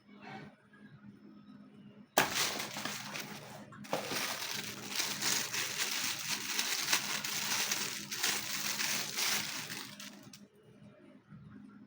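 Loud crackling, rustling noise of something being handled, starting about two seconds in with a short break near four seconds and stopping about eight seconds later.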